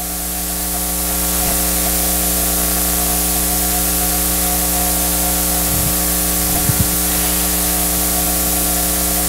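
Steady electrical hiss with a layered mains hum from the sound and recording system. It swells over the first second or so, then holds level.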